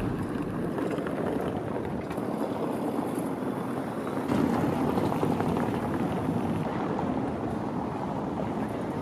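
Steady outdoor background noise: an even rumbling hiss with no distinct events, a little louder from about four seconds in.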